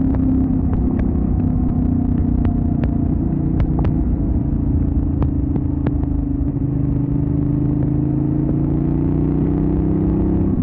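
Benelli Leoncino 800 Trail's parallel-twin engine running while the bike is ridden at a steady pace, its pitch rising gently over the last few seconds. Scattered sharp clicks are heard throughout.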